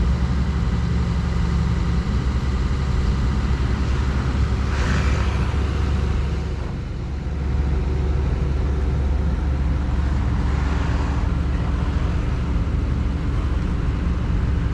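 Heavy construction-machine diesel engines running under load in a steady low drone, with a brief dip about seven seconds in, as an excavator tows a 20-ton smooth-drum road roller. Two short hissing swells rise over the engine noise around five and eleven seconds in.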